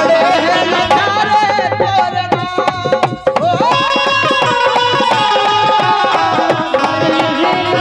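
Bundeli folk song performed live: a man sings long, drawn-out notes, one held for a few seconds in the middle, over steady hand-drum beats and instrumental accompaniment.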